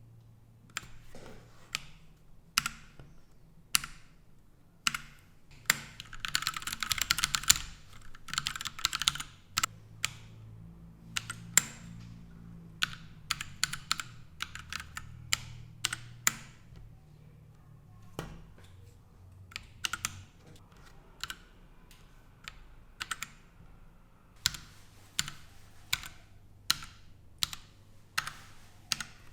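Royal Kludge RK100 mechanical keyboard with linear red switches and ABS keycaps being typed on: single keystrokes at an uneven pace, with a fast run of typing for about two seconds around six seconds in.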